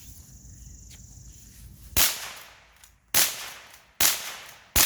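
Four gunshots fired in quick succession, starting about two seconds in and coming less than a second apart, each with a short echoing tail.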